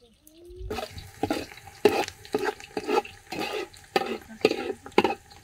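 Long-handled slotted metal skimmer stirring onions frying in oil in a metal pot, scraping against the pot about twice a second, with the frying sizzling underneath.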